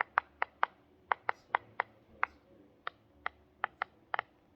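Silicone pop-it fidget toy having its bubbles pressed in one after another: a run of about fifteen sharp pops at an uneven pace, roughly three a second.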